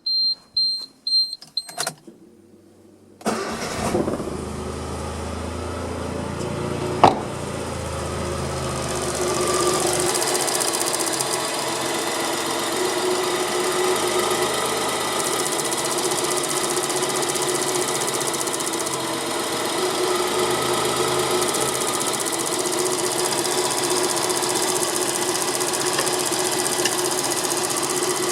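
Suzuki Cappuccino's small three-cylinder engine starting about three seconds in after a few short clicks, then settling to a steady idle, with one sharp click a few seconds after it catches. The idle gets a little louder about ten seconds in.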